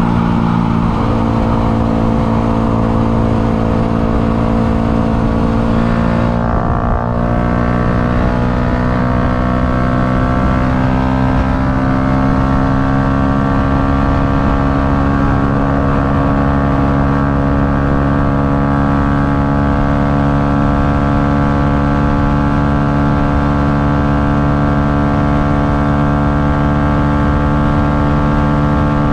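Yamaha MT-125's single-cylinder four-stroke engine running hard under full throttle, with wind rushing over the microphone. A brief dip in revs about six seconds in sounds like a gear change, after which the engine note climbs slowly and steadily as the bike pulls towards top speed.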